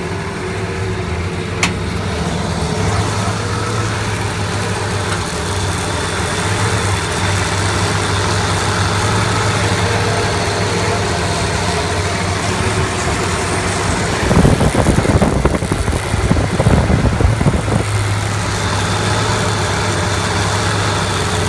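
TUG baggage tractor's spark-ignition engine idling steadily with the hood open. There is a single click near the start, and a few seconds of louder, rougher noise about two-thirds of the way through.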